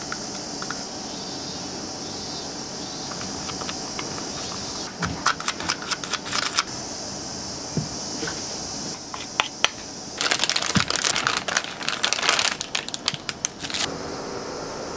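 Clear plastic piping bag crinkling as meringue is spooned into it, in two bursts of rapid crackles: about five seconds in, and again from about ten to fourteen seconds in. A steady hiss runs underneath.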